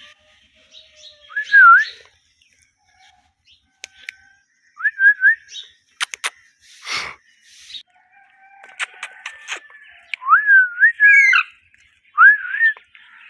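Ringneck parakeet (rose-ringed parakeet) giving short whistled chirps, four or five separate phrases that rise and bend in pitch, with scattered sharp clicks and a brief rustle between them.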